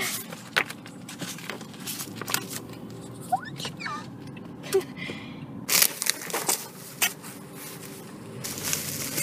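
Packaging being handled while a cardboard shipping box is unpacked: cardboard flaps and crumpled packing paper rustling, and a bubble-wrapped, plastic-sleeved item crinkling. Louder bursts of crinkling come about six seconds in and again near the end.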